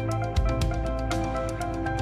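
Background music with a heavy bass, held notes and a steady beat.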